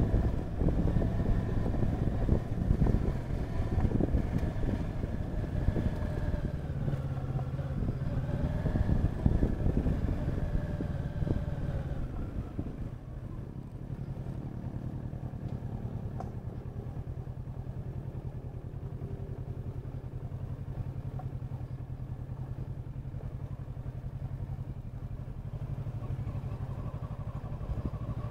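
Motorcycle engine pulling at low speed on a rough dirt trail. For about the first twelve seconds its note rises and falls with the throttle, over rough, noisy rumble. Then it drops to a quieter, steady low running note.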